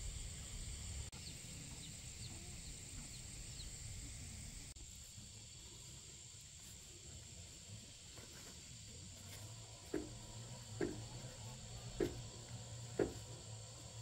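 Insects droning steadily at a high pitch across a rural field. Near the end come four short, sharp sounds about a second apart.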